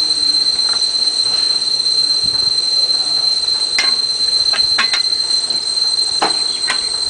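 Metal clicks and knocks from a hand-operated cast-iron screw press being worked by hand, a few scattered through the second half. A steady high-pitched whine runs throughout and is the loudest sound.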